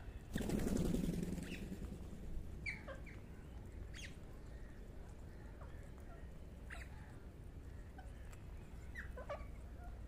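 A flock of rose-ringed parakeets feeding at close range: a loud burst of wing flapping about half a second in, then scattered short, sharp calls.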